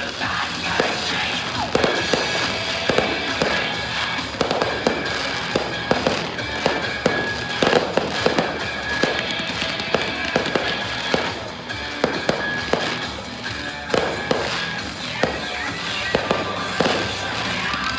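Fireworks going off in frequent, irregular bangs over music playing throughout.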